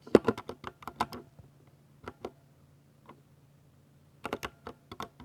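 Typing on a 60% Ducky mechanical keyboard with silver linear switches: a quick burst of keystrokes, a few scattered taps, then another short burst near the end.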